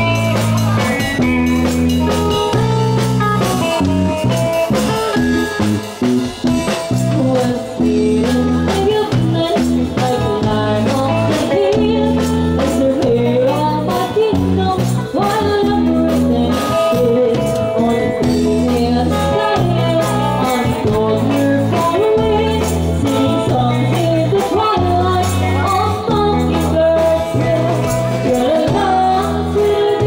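Live band music: electric bass and drum kit under female voices singing the melody together.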